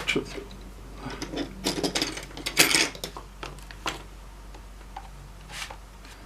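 Handling of a laptop on the bench: a quick run of small clicks, taps and light clatter over the first four seconds, and one more click near the end, over a faint steady low hum.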